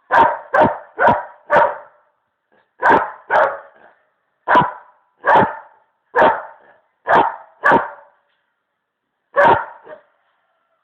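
A dog barking loudly, about a dozen sharp barks: a quick run of four, a pair, then single barks spaced out, the last one alone near the end.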